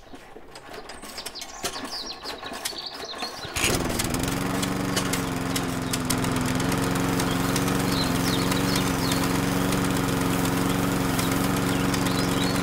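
A small motor switches on about three and a half seconds in and runs with a steady hum, its pitch dipping briefly as it gets going. Birds chirp in the background.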